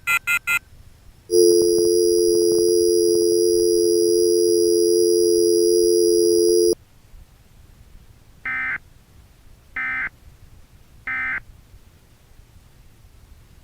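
Emergency Alert System tones: a loud, steady two-note electronic tone holds for about five seconds and cuts off, then three short, evenly spaced data bursts of the end-of-message code sound, marking the end of the alert.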